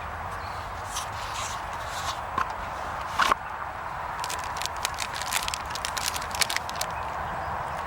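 A plastic Ziploc bag crinkling and rustling in the hands as it is wrapped around wiring connectors, with one sharper knock about three seconds in and a run of quick crackles in the second half.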